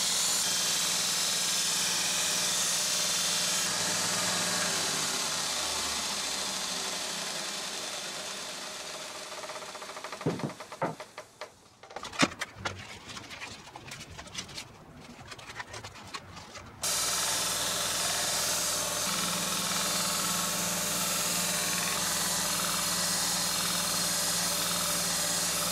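Belt grinder grinding the steel edge of a fire axe: a steady abrasive hiss over the motor's hum, which fades away as the machine runs down. A few knocks and clicks follow while the belt is stopped. Then the grinder starts up again suddenly and the steady grinding resumes.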